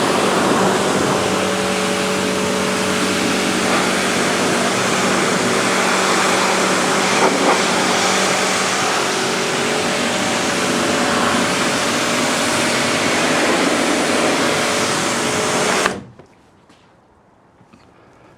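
AVA Evolution P80 pressure washer spraying a plastic wheelie bin: the hiss of the water jet over a steady motor and pump hum. It cuts off suddenly about sixteen seconds in.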